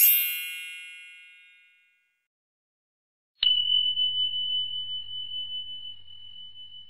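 Sound effects of a subscribe-button animation. A bright chime is fading away over about two seconds as the button is clicked. About three and a half seconds in, a single high bell ding sounds for the notification bell and rings on, slowly fading.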